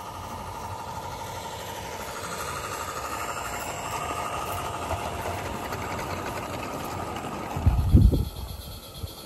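Two Mamod Boulton model diesel locomotives double-heading a train of coaches past on a garden railway, their drive whirring steadily with a thin whine. A brief low thump about eight seconds in.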